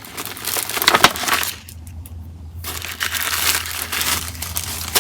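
Crinkling and rustling of packaging as it is rummaged through for bean seeds, in two spells with a pause of about a second between them.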